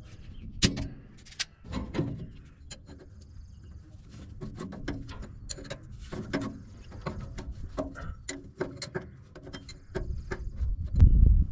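Scattered light metal clicks and taps of hand tools (pliers, a wrench and a thin screwdriver) working the jam nut and flathead adjustment screw of a hydraulic relief valve. A louder, lower sound starts near the end.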